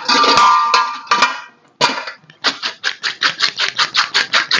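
Metal cookware clattering with a brief ringing, then a spoon scraping rapidly and evenly against a pot or bowl, about six strokes a second, as cooked macaroni is scooped and moved into a creamy sauce.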